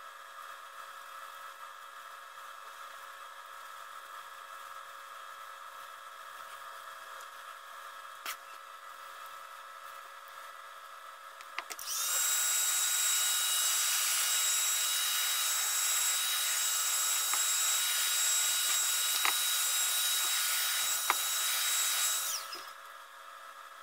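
Electric drill fitted with a wool polishing bob, switched on about halfway through and running at a steady speed for about ten seconds while it buffs the stained wooden gunstock, then switched off and winding down near the end. Before it starts there is only a faint steady hum and a few light clicks.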